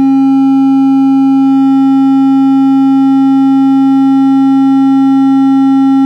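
Miniature 3D-printed ported subwoofer (a port with a wider chamber midway down it) playing a loud, steady sine test tone of about 270 Hz, which is 45 Hz at model scale, with overtones ringing above it. Driven at about 15 watts into the test cabin, it reaches about 133 dB.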